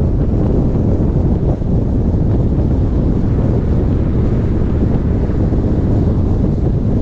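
Steady, loud wind buffeting on the microphone of a moving car, with low road rumble underneath.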